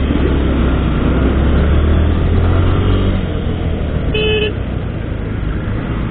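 Motorcycle engine running and road noise while riding in busy traffic, with one short horn beep about four seconds in.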